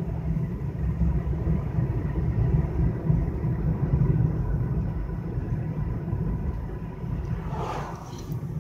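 Steady low rumble of road and engine noise heard from inside a moving car's cabin, with a brief whoosh near the end.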